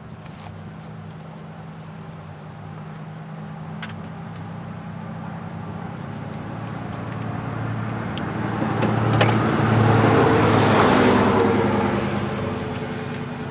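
A car goes by on a road: its engine and tyre noise grow louder for several seconds, are loudest about ten seconds in, then fade away. There are a couple of light metallic clinks, one about four seconds in and one about nine seconds in.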